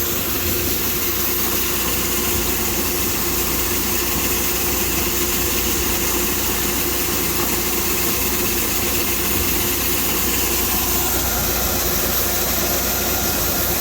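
Tractor and grain-bin unloading machinery running steadily while corn is drawn out of the center of the bin: a constant engine hum under an even hiss, with no change in speed.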